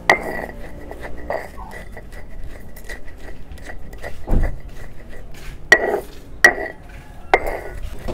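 Hand stone rubbed back and forth on a flat stone grinding slab, grinding charred plant matter to powder: gritty stone-on-stone scraping with sharp knocks, three of them close together in the last few seconds.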